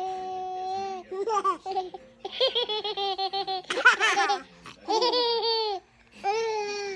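A baby laughing hard in about six bursts of high-pitched laughter, the first a long held note.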